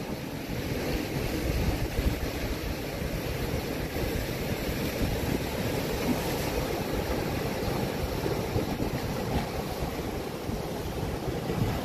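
Ocean surf breaking and washing over a rocky shore, a steady rush of waves with wind rumbling on the microphone.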